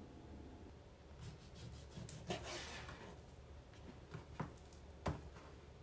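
Quiet food-prep handling sounds: a soft rubbing rustle for a couple of seconds, then a few light knocks on a cutting board as raw chicken breast is laid out.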